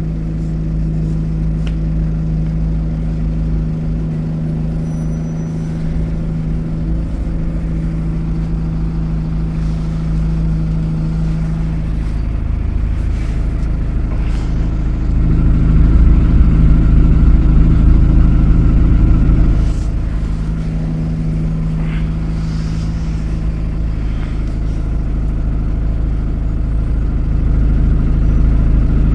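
Alexander Dennis Enviro400 double-decker bus engine running steadily while the bus is under way. It pulls harder and louder for several seconds about halfway through, then drops off abruptly, and builds again near the end.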